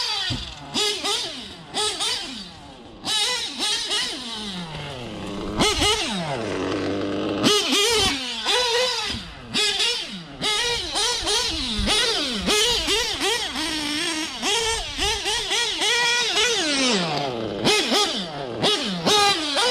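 Novarossi .25 nitro truggy engine in a 1/8-scale TLR 8X-T truggy, revved hard again and again as the truggy is driven. Its high buzzing note climbs with the throttle and falls away each time it is let off. The engine is brand new and being run in.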